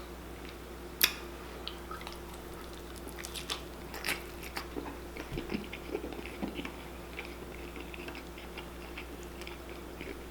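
Someone chewing a mouthful of Philly cheesesteak close to the microphone, with scattered small wet mouth clicks and one sharper click about a second in. A faint steady hum runs underneath.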